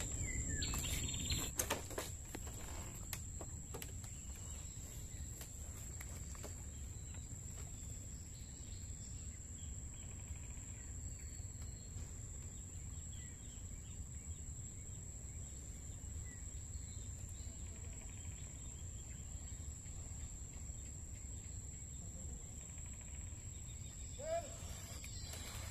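Quiet ambience: a steady high-pitched insect drone over a low rumble of wind. Faint bird chirps come through now and then, and a few sharp clicks fall in the first few seconds.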